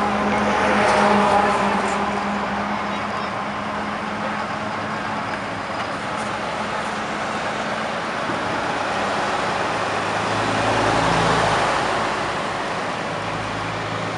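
Heavy eight-wheeled army truck's diesel engine running close by as a steady low hum over traffic noise, swelling louder about a second in and again near eleven seconds.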